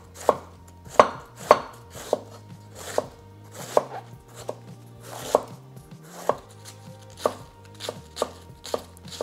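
Knife shredding a head of green cabbage on a wooden cutting board: a steady run of sharp knocks as the blade slices through the leaves and hits the board, about two strokes a second.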